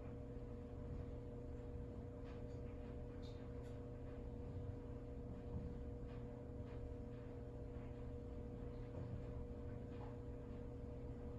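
Quiet room tone: a steady low hum with a few faint, scattered soft ticks.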